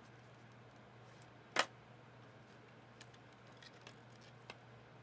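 Trading cards and a foil card pack being handled: one sharp click about a second and a half in, then a few faint clicks, over a low steady hum.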